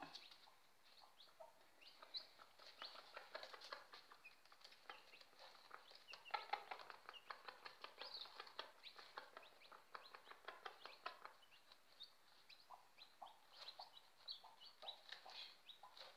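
Faint quick tapping of a hen pecking chopped boiled egg off newspaper, dense for several seconds and then sparser, with a few short high chicken calls.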